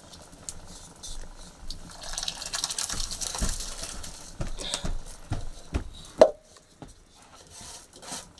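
Liquid poured from an aluminium pot into a pot on a wood fire, a splashing hiss for about two seconds. Scattered knocks of metal cookware follow, with one loud ringing clank of a pot about six seconds in.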